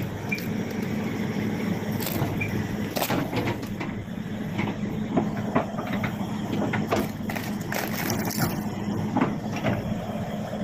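Hydraulic excavator's diesel engine running steadily under load as its bucket pushes against a tree trunk, with several sharp cracks and knocks.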